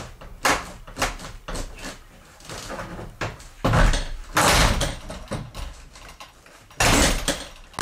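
Handling noise: a string of sharp knocks and bumps with rustling, and three louder rushes of noise about four, four and a half and seven seconds in.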